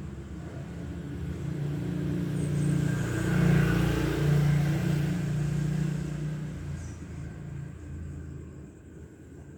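A motor vehicle's engine running, growing louder to a peak a few seconds in and then fading, as when a vehicle passes by.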